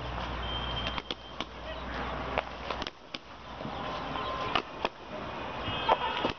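Cricket bats knocking against a ball at net practice: a string of sharp wooden knocks, roughly one a second. Under them, a low rumble drops out about halfway through, and a few short high-pitched calls come near the end.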